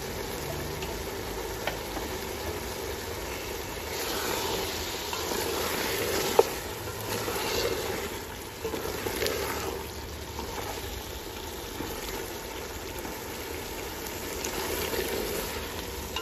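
Beef sizzling in oil in a metal pot as a wooden spoon stirs it, scraping against the pot; the stirring is louder for a few seconds from about four seconds in, with one sharp knock a little after six seconds.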